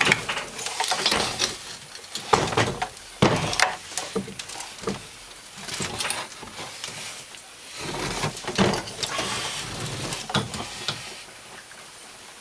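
A Honda Big Red 700 engine being rocked and lifted by hand in its frame: irregular metal clunks and knocks, with stretches of scraping as the casing rubs against the frame.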